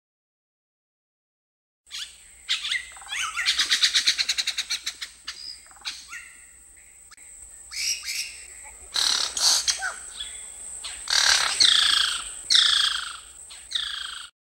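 Monkeys calling, starting about two seconds in: first a rapid chattering run of high squeaks, then several high screeching calls that fall in pitch. A thin, steady, high-pitched tone runs underneath the calls.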